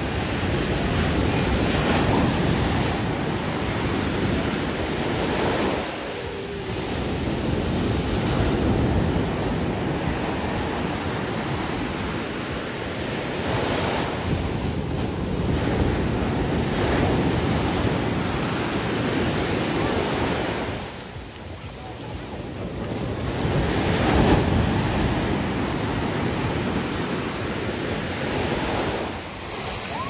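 Sea waves breaking in the surf: a continuous rush of water that swells and eases, with a lull about two-thirds of the way through followed by the loudest wave.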